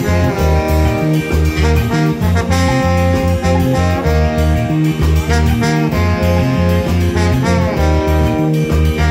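Live band music: trombone and saxophone playing held notes together over electric guitar, keytar, a steady low bass line and drums.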